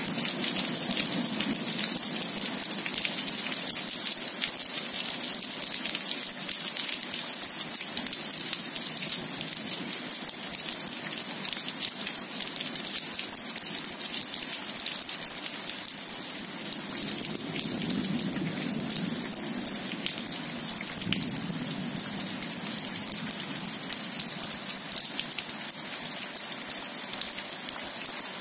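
Heavy rain falling steadily on wet asphalt and grass: a dense, even hiss of drops. A low rumble swells briefly a little past the middle.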